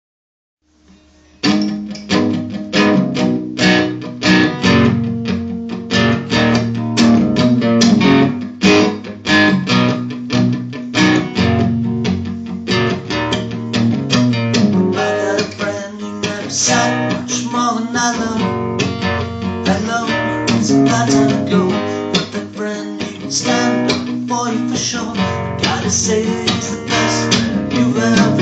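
Sunburst Gibson acoustic guitar with a capo, strummed in a steady rhythm; the playing starts about a second and a half in.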